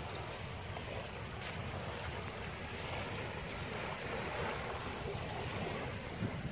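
Waves washing on the shore, a steady rush of surf, with wind buffeting the microphone.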